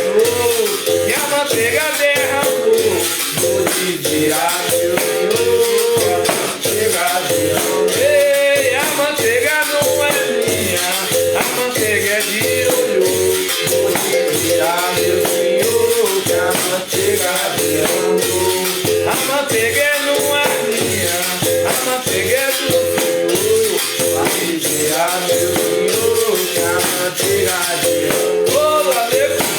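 Berimbaus with bamboo bows playing a steady capoeira rhythm: the struck wire twangs, switching between two notes, and the caxixi basket shakers rattle along with the strokes.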